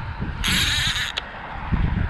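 Conventional fishing reel worked hard while fighting a hooked mutton snapper: a burst of high rasping reel noise lasting under a second, about half a second in, ending in a click. Low handling and wind thumps follow near the end.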